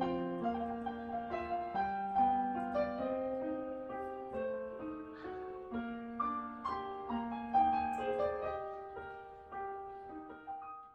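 Background piano music, a gentle melody over held chords, gradually fading out near the end.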